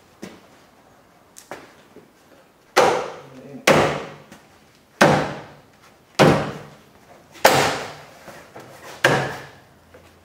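Six hard hand blows on a plastic bumper pad, pressing its tabs down into the chrome rear bumper of a 2002 GMC Sierra. The blows come about a second or more apart, and each knock rings out briefly.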